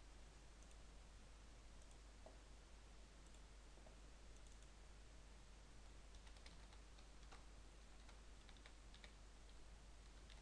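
Faint computer keyboard keystrokes and clicks: a few scattered taps, then a quicker run of them in the second half, over a steady low hum and hiss.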